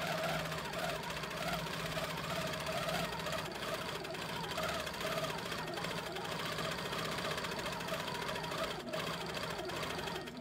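Longarm quilting machine stitching steadily, its needle running up and down through the quilt layers with an even mechanical hum.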